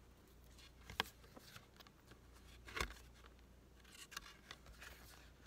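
Faint handling sounds of a cardboard board book being opened and its thick pages turned: a sharp click about a second in, a louder brush near the middle, and a few soft rustles after it.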